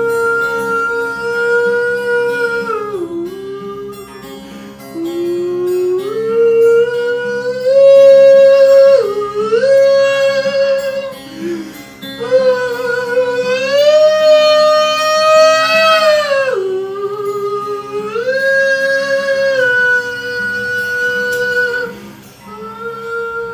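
A man singing long, wordless held notes that slide up and down between pitches, over an acoustic guitar.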